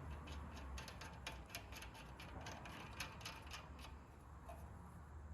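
Faint run of quick, light metallic clicks from hand tools and hardware as a tie rod end is fitted, several clicks a second, stopping about three and a half seconds in.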